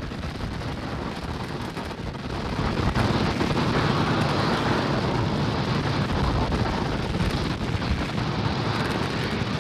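Falcon 9 first stage's nine Merlin 1D engines in flight, heard from the ground as a deep, noisy rumble that swells louder about three seconds in.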